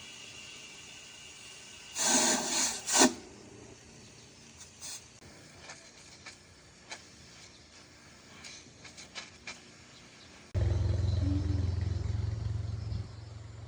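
Workshop sounds: a short loud burst of hiss about two seconds in, scattered light knocks and clicks, then a motor starts with a steady low hum about ten seconds in, dropping in level near the end.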